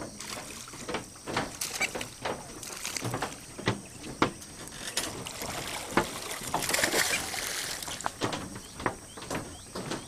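Capybaras splashing and churning shallow muddy water as they roll and tussle: irregular slaps and sloshes, with a longer burst of splashing about seven seconds in.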